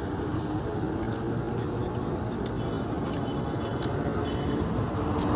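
Steady motor-vehicle road noise: a low rumble with a faint engine hum and a few light clicks.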